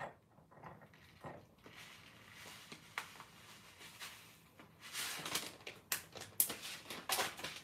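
Plastic packet of white sesame seeds rustling and crinkling in the hands, with scattered light ticks; the crinkling gets louder past the middle.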